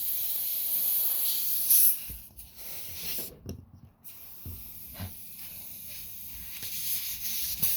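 Air hissing out of a punctured car tyre, cutting off about two seconds in as the hole is plugged, then a few light knocks; the hiss returns briefly near the end.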